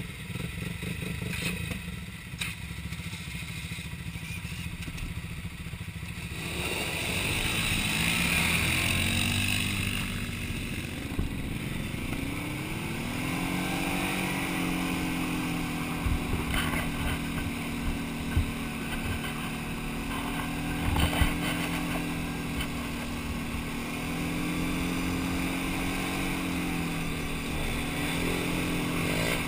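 Quad bike (ATV) engine idling, then pulling away about six seconds in and running steadily along a gravel track. Its pitch rises and falls a little with the throttle, with a few sharp knocks along the way.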